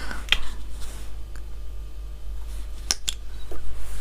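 A few sharp clicks and taps of cosmetic boxes and bottles being handled and unpacked, two of them close together about three seconds in, over a low steady hum.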